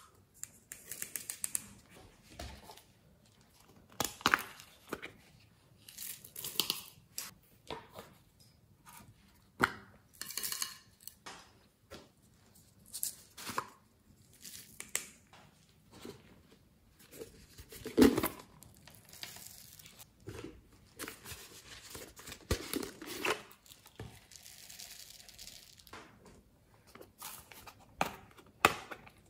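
Small plastic cups and containers handled and tipped, dropping foam beads, sprinkles and glitter into a glass dish of slime: a string of short rustles, crinkles and taps, with one sharper knock about 18 seconds in.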